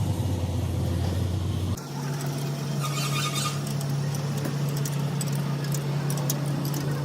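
A motor or engine running steadily with a low hum, which jumps abruptly to a higher, steady pitch about two seconds in. Scattered clicks come near the end.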